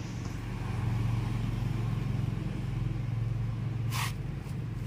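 A steady low mechanical hum, like a motor running, with a single sharp click about four seconds in.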